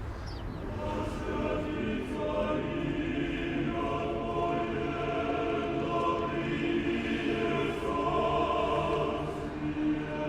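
Orthodox church choir singing a slow chant in several voices, holding notes that change together.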